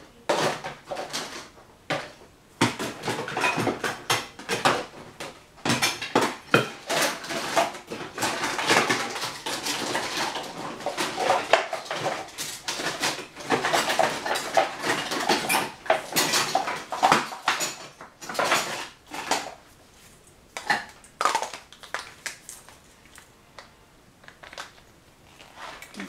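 Bowls, dishes and utensils clinking, knocking and scraping as baking ingredients are handled, busy for much of the time and sparser near the end.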